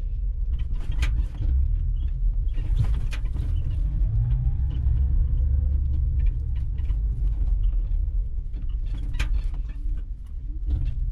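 Electric tricycle on the move: a steady low rumble of wind and road noise on the microphone, with scattered clicks and rattles.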